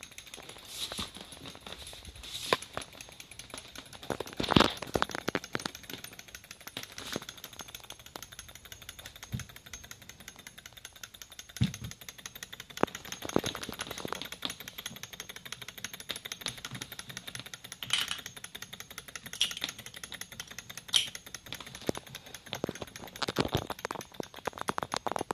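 Small Stirling engine tank model running and driving itself along, its flywheel, linkage and tracks making a rapid, even clatter of fine clicks, with a few louder knocks.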